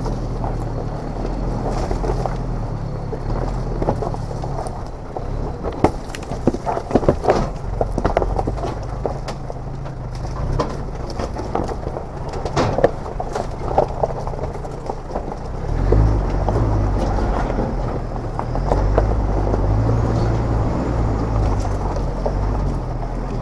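Four-wheel drive's engine running at low revs as it crawls down a steep, loose rocky track, tyres crunching over stones with a run of sharp clicks and knocks through the middle. The engine note comes up stronger again about two-thirds of the way through.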